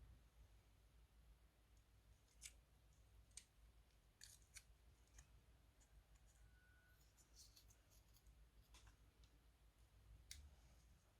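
Near silence broken by about eight faint, sharp clicks and ticks, scattered irregularly.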